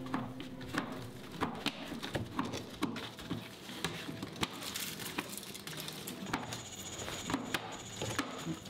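Hands handling bread dough wrapped around a slab of chocolate on a plastic cutting board: irregular small taps and clicks as the dough is pressed and rolled.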